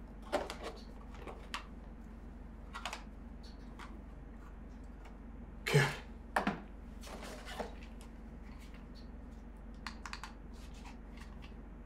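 Scattered light clicks and rustles of a toy remote-control car, its remote and its cardboard box being handled, with a brief louder sound about six seconds in.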